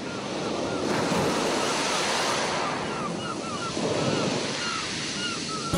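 Surf sound effect: a noisy wash of waves that swells and ebbs twice, with short chirps sprinkled over it.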